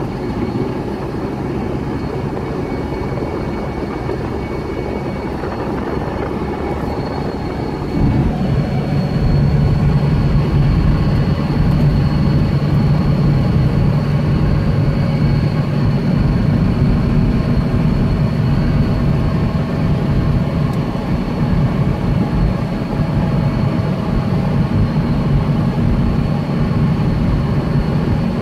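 Vehicle engine and road noise heard from inside the cabin while driving. About eight seconds in, the engine note steps up, louder and with a steady low hum, and it stays that way.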